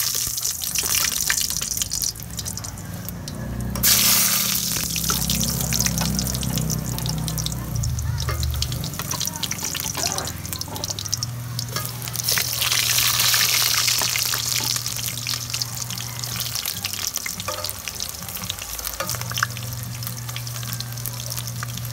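Sliced eggplant frying in hot cooking oil in an aluminium pan: a steady sizzle thick with fine crackles. It grows suddenly louder about four seconds in and is loudest from about twelve to fifteen seconds in.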